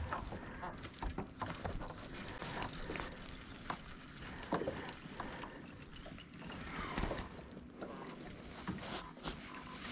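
Small waves lapping and slapping against the side of a fishing boat, irregular, with scattered light clicks and a couple of louder slaps.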